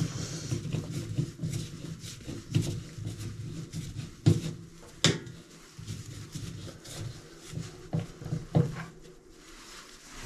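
Irregular knocks and clunks of plumbing parts and tools being handled and fitted in place, a few of them sharp, over a low steady hum.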